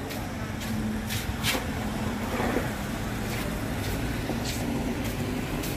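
Steady road-traffic rumble with an engine hum from vehicles on the road, and faint sharp ticks every half second to a second.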